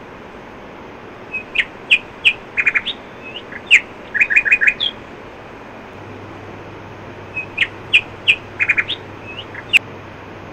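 Birds chirping in quick runs of short, sharp chirps with a few rising notes. There is a pause in the middle.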